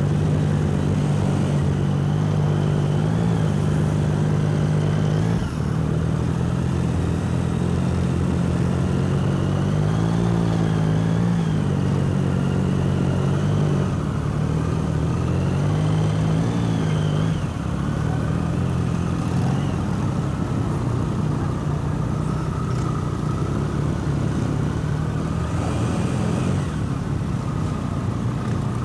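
A Honda CBR600F's inline-four engine running at low revs in slow procession traffic, its pitch rising and falling a little a few times as the throttle is eased on and off, among the engines of many other motorcycles.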